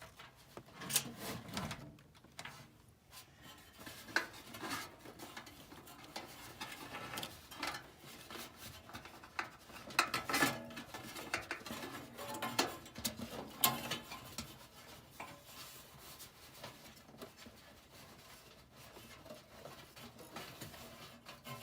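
Irregular metal clinks, taps and scraping from parts of a gas furnace's blower assembly being handled by hand, with a few sharper knocks about a second in, around ten seconds and near fourteen seconds.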